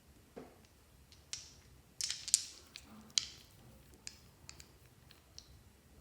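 Glossy slime being squished and pressed by hand, giving an irregular string of sharp wet clicks and pops, loudest in a quick cluster about two seconds in and again about a second later.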